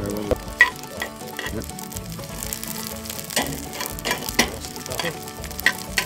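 Garlic cloves and rosemary sizzling in olive oil in a cast iron skillet over charcoal, with a knife blade stirring and scraping them in the pan and several sharp clicks along the way.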